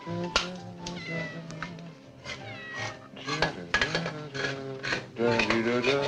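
A cat meowing several times while a utensil clicks and scrapes against a tin can, over soft background music.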